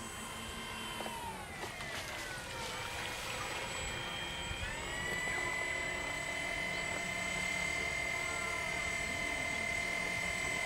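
Electric motors and propellers of an RC Albatross HU-16 flying boat model whining. The pitch slides down about one to three seconds in, then climbs quickly near five seconds and holds steady, growing slowly louder.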